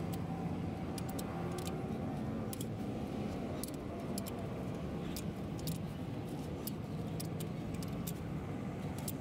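Sharp metallic clicks and clinks from a long-handled socket wrench working the bolts on a heavy truck's wheel hub, coming irregularly a few times a second. Under them runs a steady low rumble.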